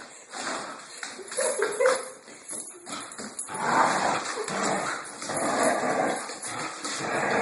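Dogs vocalising in rough play during a tug of war, a Korean Jindo and a Dachshund–Papillon mix: short whines and yips, then a longer, denser stretch of noise from about four seconds in.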